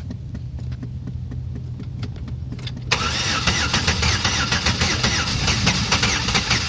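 Engine running with a repeated knocking tick. About three seconds in it turns sharply louder and harsher and stays that way. The uploader presents the sound as engine knock.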